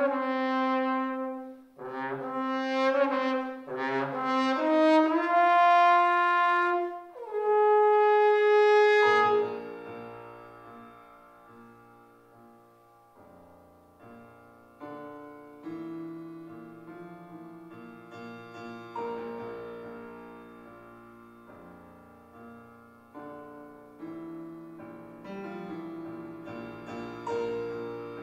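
Solo trombone playing a phrase of detached notes that climbs to a long held note, cut off about nine seconds in. The piano then plays on alone, softer, with notes that ring and fade.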